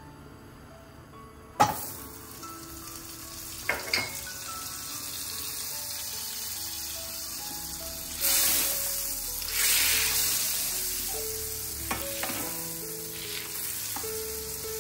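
Cubes of butter hit a hot hammered copper pan and start sizzling suddenly about a second and a half in. The sizzling carries on steadily as the butter melts and is stirred with a wooden spoon. It swells louder twice mid-way as the spoon moves the butter, with a few light knocks of the spoon against the pan.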